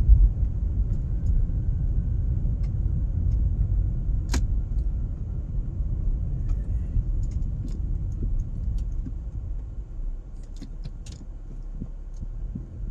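Cabin sound of a 2011 Toyota Prius coasting in neutral: a low road rumble that fades as the car slows to a stop, with a sharp click about four seconds in and a few faint clicks near the end.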